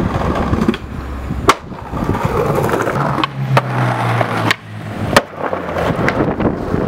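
Skateboard wheels rolling over pavement and asphalt, with sharp clacks of the board popping and landing, the loudest about a second and a half in and again about five seconds in. A low steady hum sits under the rolling in the middle.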